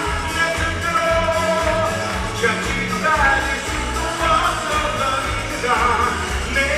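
Upbeat musical-theatre song: singers over pop-rock band music with a steady drum beat.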